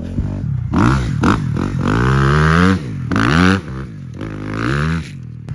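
Dirt bike engine revving hard in four or five bursts, its pitch climbing and dropping each time, as the bike is ridden through soft sand.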